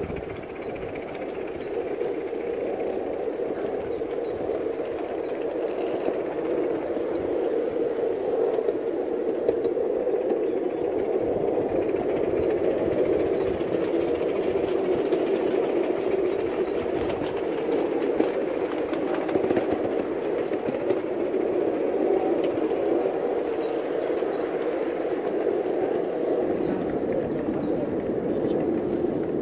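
Ride-on miniature garden railway train running along its track: a steady rumble of the small wheels rolling on the rails, with faint clicks over the rail joints.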